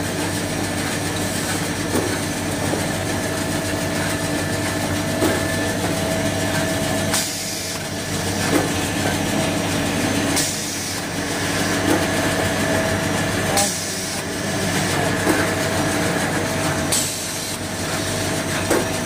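Automatic band saw toilet-paper log cutting machine running with a steady mechanical hum that holds several steady tones. From about seven seconds in, a short rushing noise comes roughly every three seconds, four times.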